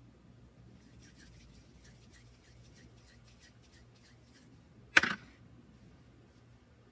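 Resin D4 rune dice clicking together lightly in a hand, about three clicks a second, then cast onto a hard surface with one loud, brief clatter about five seconds in.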